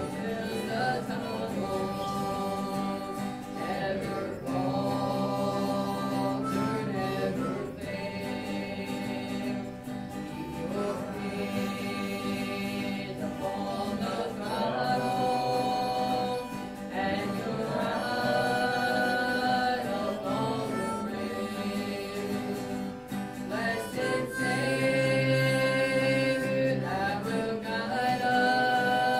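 A woman singing a gospel hymn, with two guitars accompanying her.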